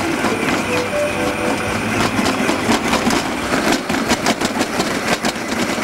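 Electric stand mixer running, kneading stiff pasta dough of flour, eggs and oil in its steel bowl, with a fast clatter of knocks that grows from about two seconds in.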